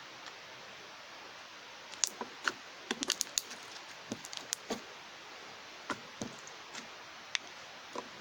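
Putty-like slime being squeezed and poked by hand, giving an irregular run of small sharp clicks and pops after about two seconds of faint hiss.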